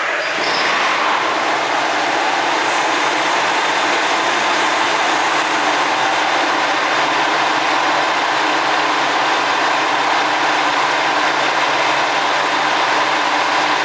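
Yuri Kogen Railway YR-3000 diesel railcar's engine running steadily at idle, freshly started from cold in the depot.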